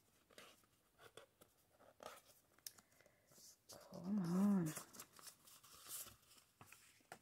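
Faint paper rustling and sliding as an art print is worked out of its paper sleeve, with scattered small clicks of paper handling. About four seconds in there is a short hummed 'mm-hmm' from a person, which is the loudest sound.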